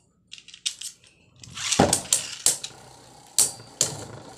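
Brave Valkyrie and Glide Ragnaruk Beyblade Burst tops battling in a plastic stadium. About one and a half seconds in comes a loud scraping rush as the second top is launched in. After it, the spinning tops clash with sharp plastic-and-metal clicks and knocks.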